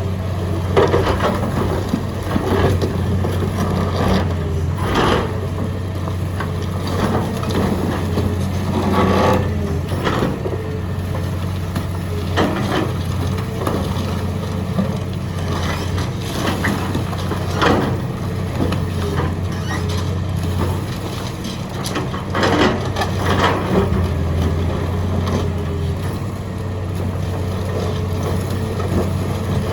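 Excavator engine running steadily while concrete is crushed, with irregular cracking and crunching knocks every second or two.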